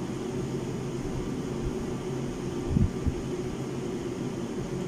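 Steady hum of a room air conditioner, with one brief low thump just under three seconds in.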